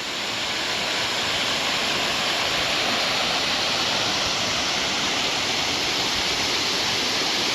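Waterfall rushing steadily over rock, a continuous roar of falling water that fades up in the first second.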